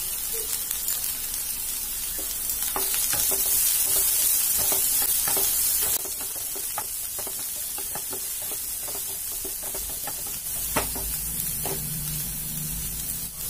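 Diced capsicum, carrot and onion sizzling in hot oil in a non-stick frying pan, stirred with a wooden spatula, with frequent light scrapes and taps against the pan.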